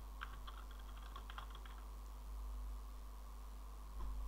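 Quiet computer keyboard typing: scattered keystroke clicks, thickest in the first second and a half, over a steady low hum.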